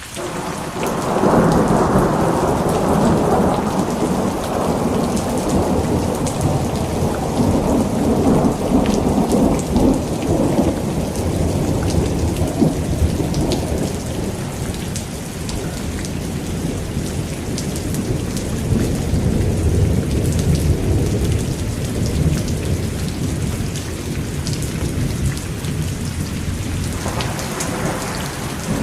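Heavy rain falling steadily, with fine drop ticks. A long roll of thunder swells right at the start and rumbles away over about a dozen seconds, and a second rumble of thunder builds near the end.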